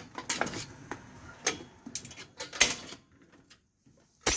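Irregular metal clicks and light scrapes from hand tools working on rear drum-brake hardware, then near quiet about three seconds in, then a sharp metallic clack near the end.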